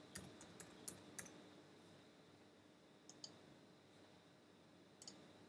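Faint clicks of computer keys: a quick run of keystrokes in the first second or so, then a pair of isolated clicks about three seconds in and another pair about five seconds in.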